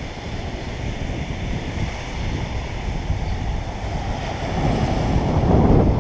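Surf washing onto a sandy beach, mixed with wind rumbling on the camera's microphone; the rumble swells louder about four and a half seconds in.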